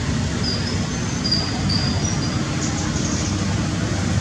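Steady low rumble of outdoor background noise, with a few short, faint high-pitched squeaks between about half a second and two and a half seconds in.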